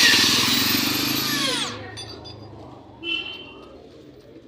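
Electric power tool, used in repairing a stripped engine bolt thread, running at full speed and then released about a second and a half in, its motor winding down with a falling whine.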